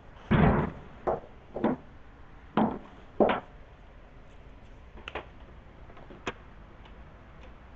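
A run of about seven short knocks and clicks at uneven intervals, the loudest right at the start and the last two fainter, over a low steady background hum.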